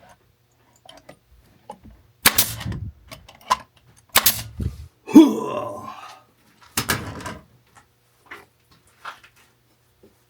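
Three loud hammer blows about two seconds apart, each ringing briefly, with a short squeaky pitched sound between the second and third and a few light taps after.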